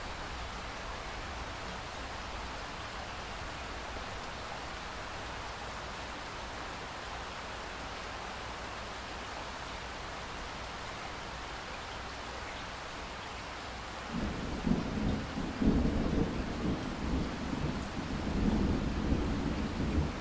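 Steady rain hiss. About fourteen seconds in, a long rolling rumble of thunder starts and swells twice; it is the loudest sound and is still rumbling at the end.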